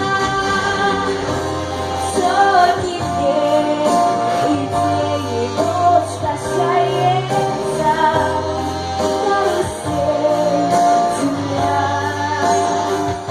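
A female voice singing a melody over instrumental backing music.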